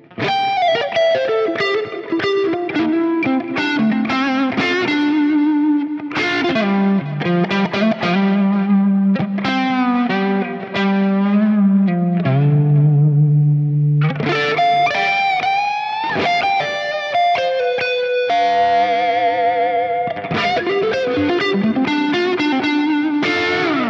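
Kiesel Delos electric guitar played solo through an Axe-Fx III preset on the FAS Express amp model, with a basket-weave cabinet, delay and a little compression. It plays a smooth, lightly overdriven lead melody of sustained notes with string bends and wide vibrato.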